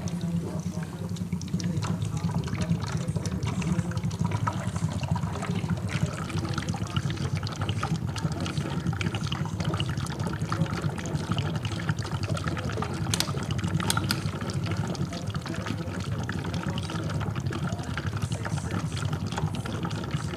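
Water churning with gas bubbles in an HHO electrolysis cell and its bubbler, a dense steady bubbling and crackling, over a low steady hum. The cell is running near full output, making about 10 to 12 litres a minute of hydrogen-oxygen gas.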